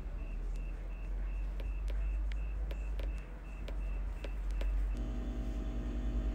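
A night insect chirping, a short high chirp repeated evenly about three times a second, with scattered sharp clicks over it. About five seconds in, it cuts off and a steady electrical hum with a low pulsing takes over.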